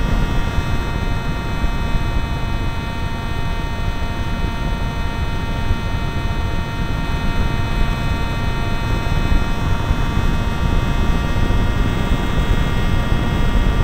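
The Zagi v4 RC flying wing's motor and propeller running at a steady, high-pitched whine with several even tones, heard from the camera on board. Rushing wind noise runs underneath. The pitch dips slightly at the very end.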